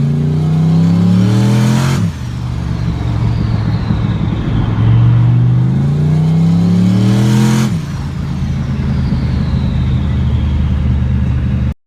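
Turbocharged 6.0-litre V8 with a billet S480 turbo revving up hard twice, each run ending in an abrupt lift-off where the engine note drops and the turbo's high whistle falls away. After each lift the turbo chatters in compressor surge. The sound cuts off suddenly near the end.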